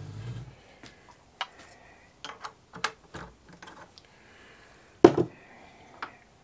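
Steel tool holders being handled on a lathe's quick-change tool post: scattered light clicks and metal knocks, the loudest a sharp clank about five seconds in.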